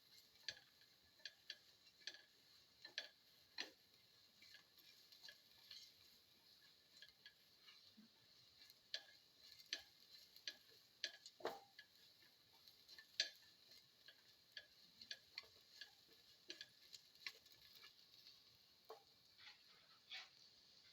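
Near silence with faint, irregular clicks and taps, one or two a second, from shallots being sautéed in a pan.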